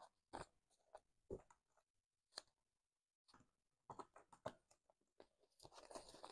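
Faint rustling and crisp snaps of paper banknotes being handled and counted by hand. The sounds come as scattered short crackles and grow denser near the end.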